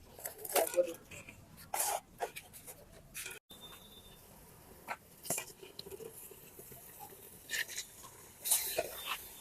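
Scattered short clinks and knocks of a cooking pot and utensils being handled.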